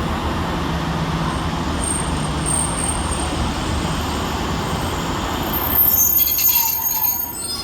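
Diesel multiple-unit train engine running steadily with a low hum. About six seconds in, a high-pitched squeal of brakes and wheels on the rails cuts in as the train slows.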